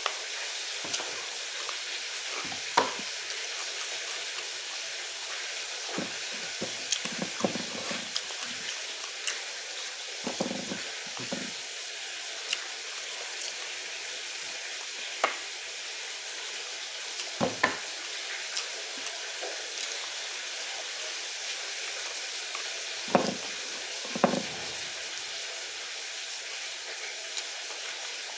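Crunching and chewing of fried fish eaten bones and all, in scattered short crackles, over a steady hiss.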